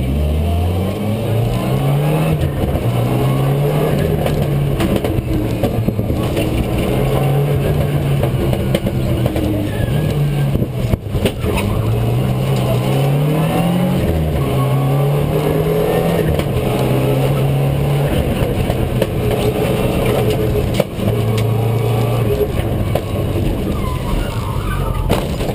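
Rally car engine heard from inside the cabin, accelerating hard and changing up through the gears again and again; the engine note climbs and drops back with each shift. Near the end it runs at a steadier pitch.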